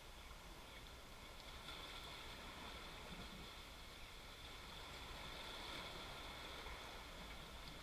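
Faint, steady wind and sea-wash noise, a low rumble under a soft hiss that swells slightly after about two seconds.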